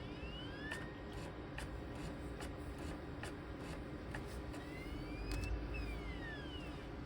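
ThinkPad T23's CD-ROM drive reading the install disc: the motor whine rises as the disc spins up, then rises and falls again late on, with scattered clicks of the read head seeking, over the laptop's steady hum.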